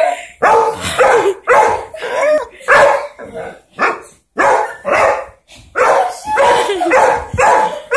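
Small dog barking repeatedly in excited play, about two barks a second, with a brief pause a little past halfway through.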